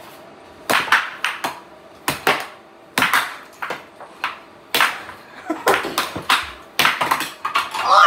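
Air hockey rally: the plastic puck and mallets clack sharply again and again, irregularly and a few times a second, as the puck is struck and rebounds off the table's rails. The clacking starts about a second in.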